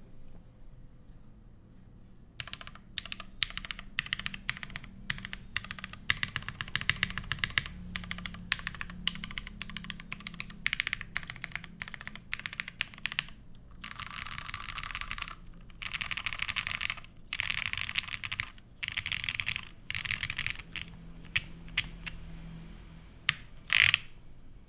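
Typing on a Monokei Jane v2 ME mechanical keyboard with lubed Cherry Hyperglide Black linear switches, a poly plate and GMK keycaps. The typing starts about two seconds in, runs of fast keystrokes come in the second half, and a brief loud cluster of strokes falls near the end.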